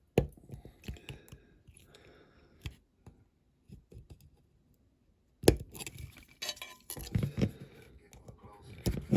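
Small clicks, taps and knocks of a diecast model van's metal body and plastic parts being handled and prised apart. A sharp tap comes just after the start, then a nearly quiet stretch, then a busier run of knocks from about halfway on.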